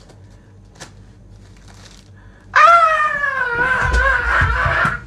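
A person lets out one long, high wail lasting about two and a half seconds, starting about halfway in. Before it there is only faint room sound with a single click.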